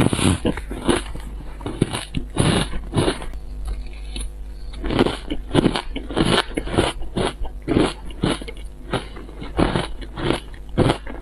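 Close-miked chewing of a mouthful of powdery shaved ice with purple ice crystals: a run of sharp, irregular crunches, about two or three a second.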